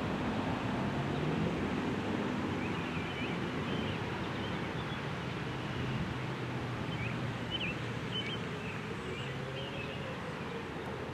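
Outdoor ambience: a steady rush of wind and distant traffic with a faint low hum, and small birds chirping now and then. A faint wavering tone comes in near the end.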